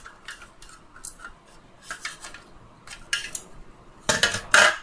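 Hard plastic parts of a Dyson V10 vacuum's handle housing being handled, with scattered small clicks and knocks and a louder scraping rub about four seconds in.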